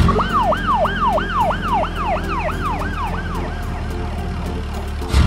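Police siren sound effect: a fast up-and-down wail repeating about three times a second, fading out after about three and a half seconds, over background music.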